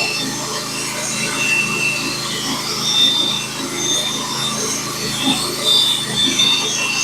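Portable sawmill cutting a board off a pine log: a steady sawing noise with a high whine that comes and goes.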